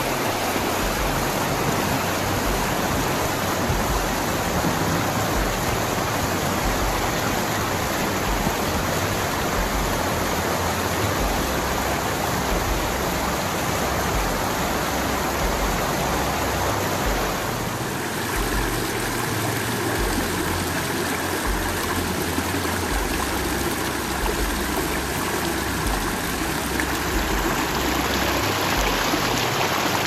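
Fast-flowing woodland stream rushing over rocks and through fallen branches in small white-water cascades: a steady, full rush of water. About eighteen seconds in the sound shifts a little as a different stretch of the stream, pouring over a rock ledge, takes over.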